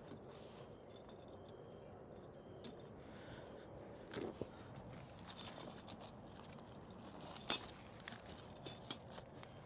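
Steel truck snow chain links clinking and jangling in short, scattered bursts as the chain's inside hook is worked loose behind the tire, with a few sharper clinks in the second half.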